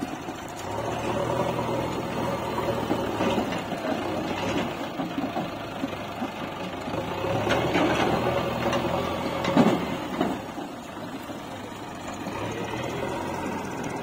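JCB backhoe loader's diesel engine running under load as it raises its front bucket over a tractor trolley and tips in mud, with a sharp thump about ten seconds in as the load drops.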